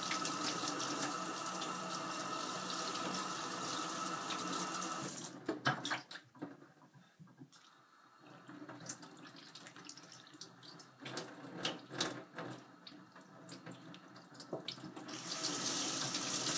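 Kitchen tap running into a stainless-steel sink as a gutted catfish is rinsed under it. The water stops about five seconds in, leaving small knocks and splashes of handling, and is turned on again near the end.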